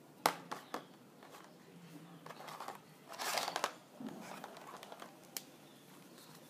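Felt-tip markers being handled on a tabletop: two sharp clicks near the start as the black marker is capped and set down, a short rustle about three seconds in, then faint scratching of a green marker colouring on paper near the end.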